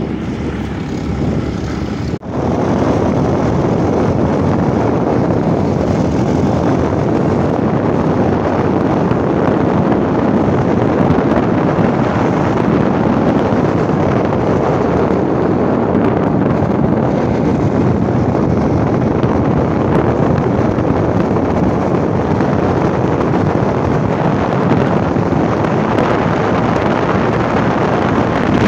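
Motorcycle on the move, with wind rushing over the microphone and the engine running steadily. The sound breaks off for an instant about two seconds in.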